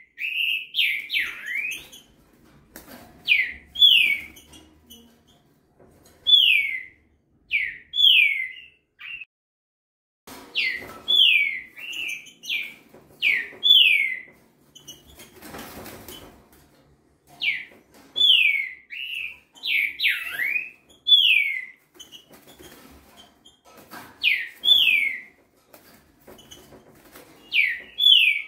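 Young green-winged saltator (trinca-ferro) singing: short phrases of two or three clear whistled notes, each sliding down in pitch. A new phrase comes every couple of seconds, about twenty a minute, which is the rapid delivery prized in a 'velocista' singer.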